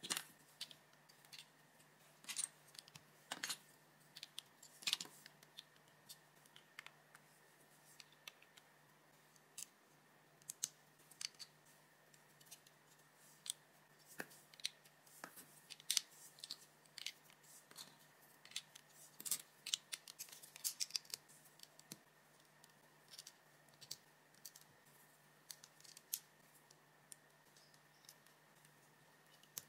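Plastic LEGO bricks clicking and snapping together as they are pressed onto a small build by hand: irregular sharp clicks, some in quick clusters, over a faint steady hum.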